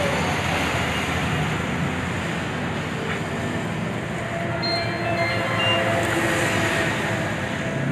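Steady motor-vehicle noise with a low engine hum, with a few faint high thin tones about halfway through.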